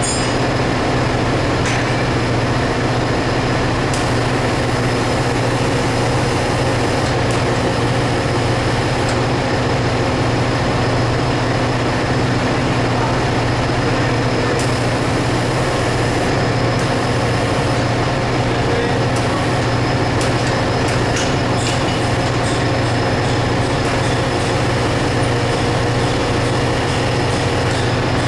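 Loud, steady ship's engine-room machinery noise: a constant low drone with a hum, unchanging throughout.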